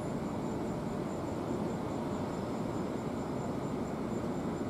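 NJ Transit push-pull commuter train rolling slowly in with its cab car leading: a steady low rumble.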